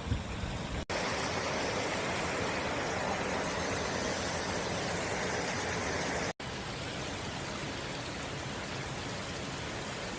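Small waterfall, water rushing and splashing steadily. The sound breaks off abruptly about a second in and again past the middle, resuming each time slightly changed, as at cuts between shots.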